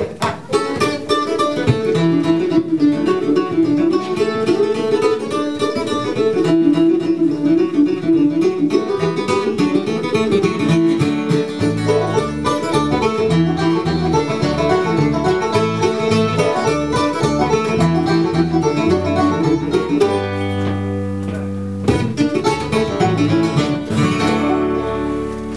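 Bluegrass band playing an instrumental passage: rapid five-string banjo picking over acoustic guitar, with a bass line joining about halfway through. A chord rings out briefly near the end before the final phrase.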